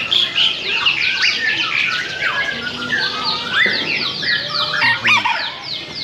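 Many caged birds calling at once: a dense, overlapping chorus of quick chirps, whistles and squawks, some in rapid runs of repeated notes.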